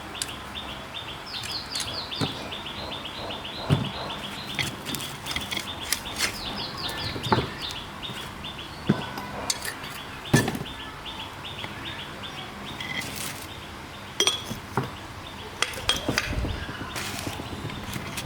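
A bird chirping in a fast, even series of short calls, about five a second, that stops about two-thirds of the way through. Sharp knocks and clinks are scattered through it, the loudest two at about four and ten seconds in.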